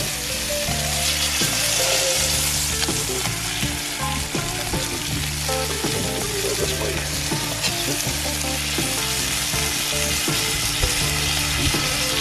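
Flour-coated flounder frying in butter and oil on a barbecue hotplate: a steady sizzle.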